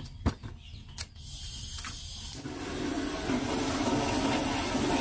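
Handheld butane torch on a gas canister: two sharp clicks, then gas starts hissing about a second in, and from about two and a half seconds the lit flame burns with a loud, steady rushing hiss.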